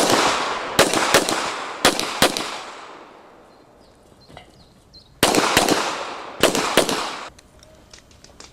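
Handgun shots fired rapidly in pairs, each with a ringing tail: three bursts in the first two and a half seconds, a pause of about three seconds, then two more pairs. Faint clicks follow near the end.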